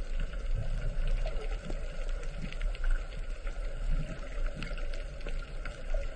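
Rushing, churning water with a steady low rumble and small splashes throughout.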